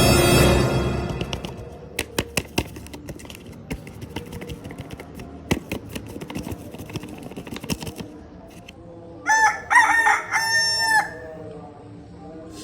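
A rooster crowing sound effect, one loud broken crow near the end. Before it, music fades out in the first second or two and scattered clicks and knocks follow.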